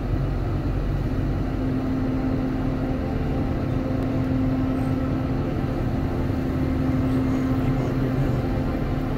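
Steady low vehicle rumble, with a steady hum joining it about a second and a half in.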